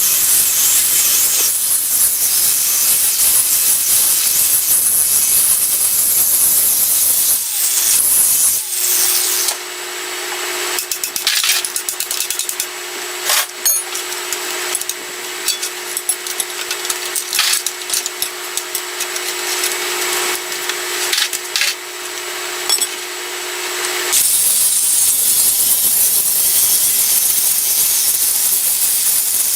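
Power wire wheel scrubbing the steel jackshaft: a harsh, high hiss while it is pressed to the metal. Through the middle stretch it eases to the tool's steady motor whine with scattered sharp ticks of the wire bristles catching, then bears down hard again near the end.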